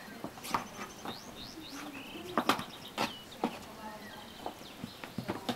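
Irregular taps, knocks and scratches as kittens paw and scuffle at a poster-board sign on a wooden deck, with the sharpest knocks about two and a half and three seconds in. Birds chirp briefly in the background.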